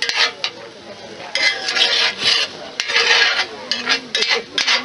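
Metal slotted spoon scraping and stirring sliced vegetables in a square cast iron Dutch oven, a quick, uneven run of scrapes against the pan's iron bottom and sides.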